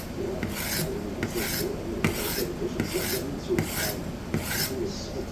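Hard Japanese steel knife edge being ground back and forth on a diamond plate, about six strokes in quick succession. The edge is being taken down past deep chips before a new bevel is cut.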